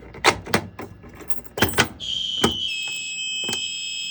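A fire alarm pull station, a BG-10, being pulled: several sharp mechanical clacks. About halfway through, the fire alarm goes off with a steady high-pitched electronic tone, joined shortly after by a second, slightly lower tone.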